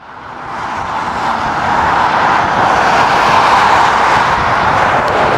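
Fighter jet's engines roaring in flight as the delta-wing jet climbs and banks overhead. The roar swells up over the first second or two, then holds steady.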